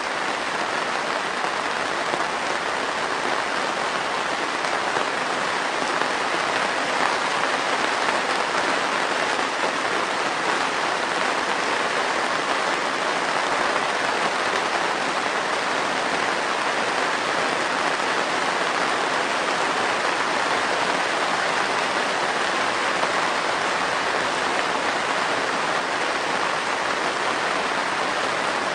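Heavy rain drumming steadily on a greenhouse roof, heard from inside: a dense, even hiss of drops with no let-up.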